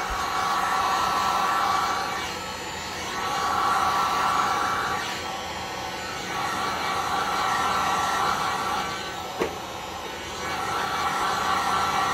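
Electric heat gun running on its low setting: a steady fan hiss with a whine, swelling and fading as it is swept back and forth over the wood to dry a water-diluted tint stain.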